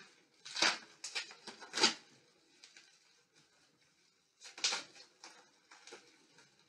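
Plastic wrapping crinkling in short bursts as a small packet of mounting bolts is unwrapped by hand. Three rustles come in the first two seconds, then a pause, then more crinkling from about four and a half seconds in.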